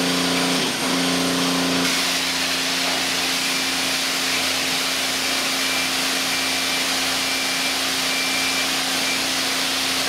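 Self-serve car wash high-pressure wand spraying water: a steady rushing hiss with a constant low hum underneath, unbroken throughout.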